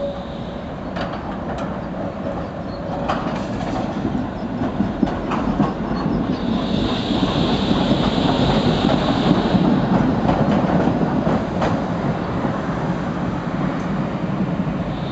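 Low-floor articulated electric tram passing close, its wheels rumbling on the rails with scattered clicks and knocks over rail joints and points. The sound is loudest from about seven to ten seconds in, with a high hiss while the tram is nearest.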